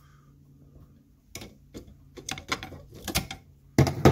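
Flat screwdriver prying at a truck alternator's metal housing and stator: a run of irregular metal clicks and scrapes that grows busier, with a louder clunk near the end as the part works loose.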